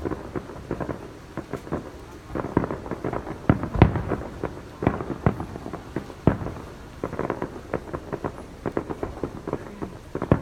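Fireworks going off: a rapid, irregular run of booms and cracks, the loudest just under four seconds in.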